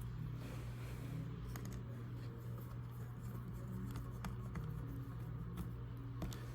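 Light clicks and taps of hands working on a laptop over a steady low hum.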